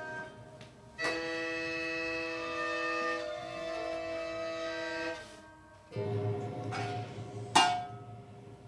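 Prepared hurdy-gurdy in free improvisation. About a second in, a drone rich in overtones starts suddenly and holds for about four seconds. A rough, low buzzing then takes over, broken near the end by a sharp knock, the loudest moment.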